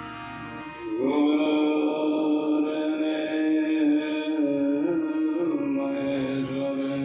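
Man's voice holding one long sung note of a devotional chant, entering about a second in and bending slightly in pitch twice before it fades near the end, over a steady harmonium drone.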